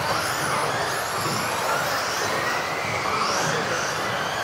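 Several electric off-road RC cars racing, their motors and drivetrains making overlapping whines that rise and fall in pitch as they accelerate and brake.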